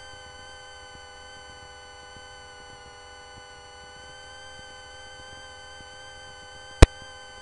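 Aircraft intercom feed with no one speaking: a faint, steady electronic hum of several high and low tones, broken by one sharp click near the end.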